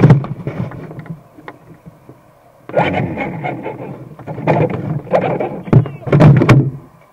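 Knocks, clicks and rubbing from hands handling the RC car's body shell right at the mounted camera, coming in two bouts with a quieter gap before the first.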